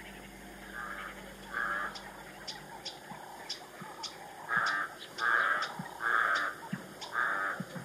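A bird giving about six short, harsh calls in two groups, each call under half a second, with faint quick clicks or chips between them.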